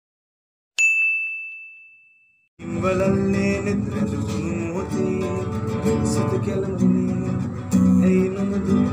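A single bright ding about a second in, fading out over a second and a half, from a subscribe-button bell animation. About two and a half seconds in, an acoustic classical guitar starts playing and keeps going.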